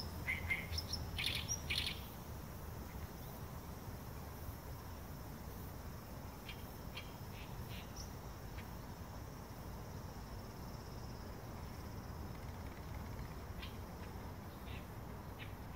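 Forest ambience: short bird chirps, a cluster in the first two seconds and a few scattered later, over a faint steady high insect drone and a low rumble.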